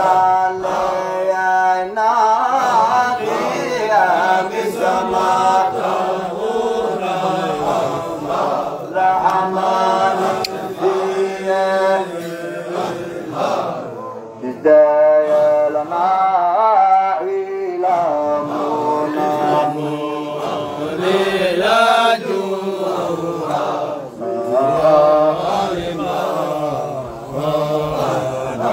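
Men's voices chanting a Qadiriya Sufi dhikr, led by one voice on a microphone, in a melody that rises and falls.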